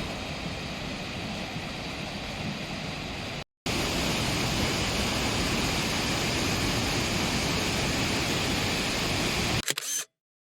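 Waterfall rushing: a steady, full wash of falling water in two edited shots, broken by a brief cut to silence about three and a half seconds in, the second shot louder. A few sharp knocks near the end, then the sound cuts off.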